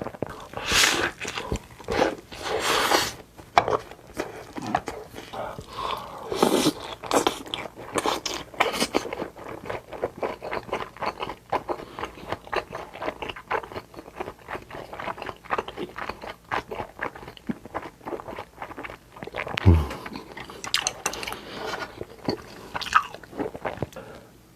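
Close-miked eating of a Korean home-style meal: steady chewing with wet mouth clicks and crunchy bites, loudest several times in the first few seconds. There is a single deep thump a little past three-quarters of the way through.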